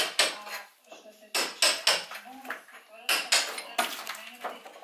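Metal hand tool striking and chipping the brick and old plaster of a window reveal: a run of sharp, irregular knocks in quick clusters of two or three.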